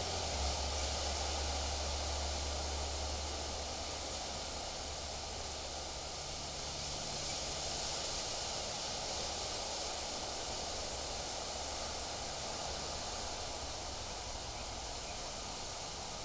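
Wind rustling through trees and leaves, a steady hiss, with a low rumble underneath that eases off about halfway through.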